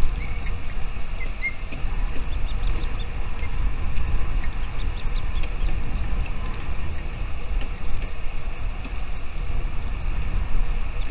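A steady low rumble, like wind buffeting the microphone, with faint short high bird chirps scattered through it.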